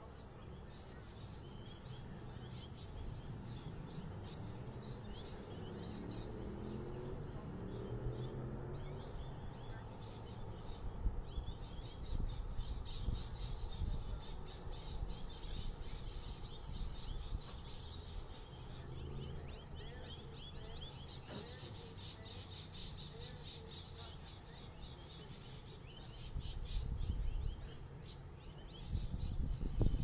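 Birds chirping and calling over a steady low background rumble, which grows louder near the end.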